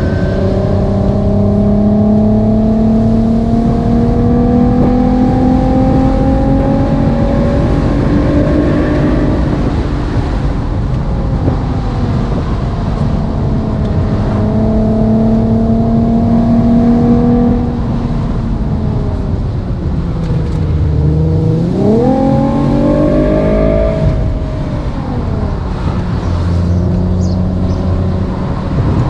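Simulated sports-car engine and exhaust sound from an engine-sound app, following the car's real revs. The note climbs slowly through two long pulls, each dropping back as if on an upshift, then rises sharply a little past twenty seconds in and falls back to a low, steady run.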